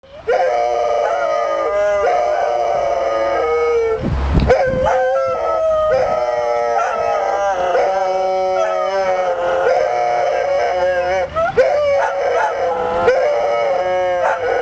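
Two Airedale terriers howling together, long wavering howls overlapping at different pitches, set off by an emergency vehicle siren.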